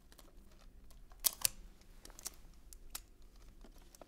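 Wrapping paper crinkling under hands folding and pressing it against a cardboard gift box, in a few short faint crackles, the loudest two close together about a second in.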